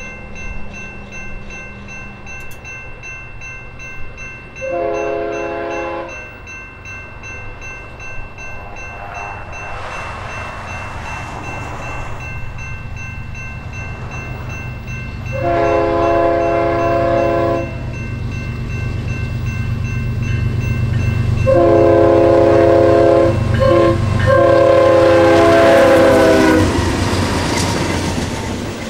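Eastbound BNSF double-stack freight train approaching and sounding its multi-tone air horn in the grade-crossing pattern: long, long, short, long. The locomotive's rumble grows steadily louder, and the train is passing close by near the end.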